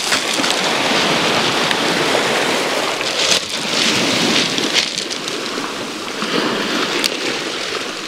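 Small waves breaking and washing up over a pebble beach: a steady rushing hiss that swells with each wave, several times.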